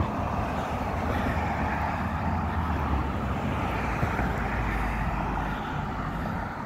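Road traffic: vehicles driving past on a busy street, a steady noise of tyres and engines. A heavier low rumble swells in the middle and eases off near the end.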